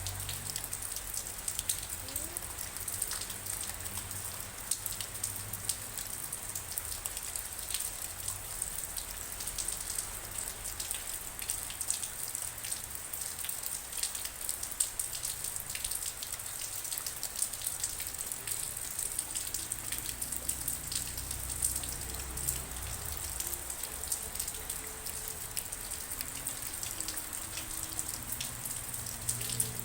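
Steady rain falling, many drops pattering on a surface in a dense, even ticking. Faint low held notes come and go in the second half.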